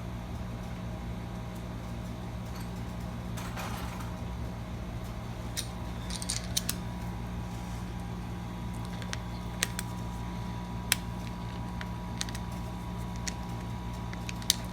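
A steady, fan-like mechanical hum, with a few scattered light clicks and ticks as a padlock is handled.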